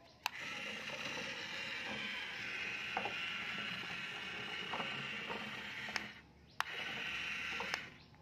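Toy remote-control dump truck's small electric motor and plastic gearbox whirring as it drives. It starts with a click, stops about six seconds in, and after another click runs again briefly.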